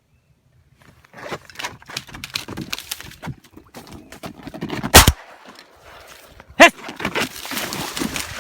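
Two shotgun shots about a second and a half apart, very loud, amid rustling and handling noise.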